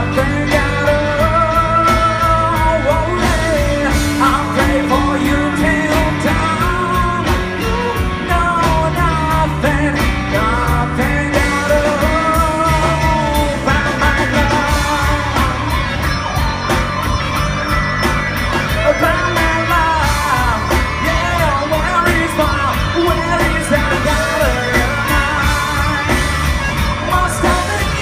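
Rock band playing live: a male voice singing over two electric guitars, electric bass and drum kit.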